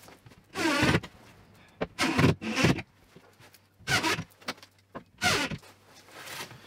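Cordless drill-driver driving screws into a wall bracket in five short bursts, its motor pitch bending as each screw tightens.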